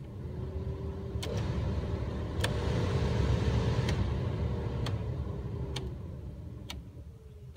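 Chevrolet Avalanche's heater and air-conditioning blower fan blowing air from the dash vents as the fan-speed knob is clicked through its positions. The air rush grows louder up to about halfway, then falls away as the knob is turned back down, with a few light clicks from the knob. Every speed now works with the new blower resistor fitted.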